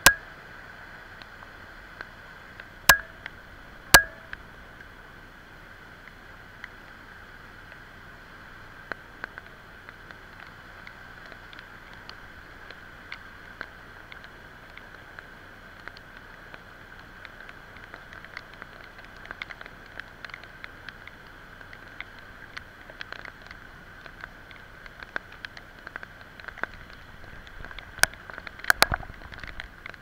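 Shallow monsoon stream rushing over rocks as a steady hiss of water. Sharp knocks come at the very start, twice a few seconds in and again near the end, with light scattered ticks growing more frequent in the second half.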